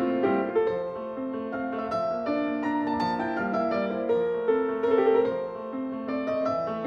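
Background piano music, notes played in a gentle melody over chords.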